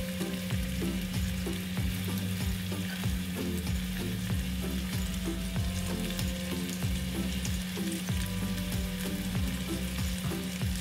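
Spice-coated chicken drumsticks frying in shallow hot olive oil, a steady crackling sizzle, with a steady low hum underneath.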